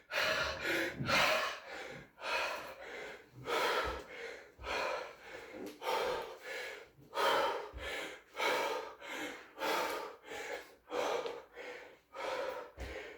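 A man panting hard, with quick in-and-out gasping breaths nearly two a second, winded at the end of an exhausting workout.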